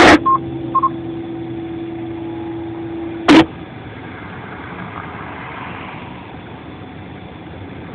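Amateur two-way radio between transmissions: a squelch burst, two short high beeps of a courtesy tone, and a steady hum on the open channel, cut off by a second squelch burst about three and a half seconds in. After that comes a steady, quieter background noise.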